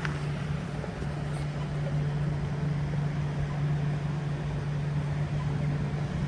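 A steady low mechanical hum over a constant background rush, with no bell strikes.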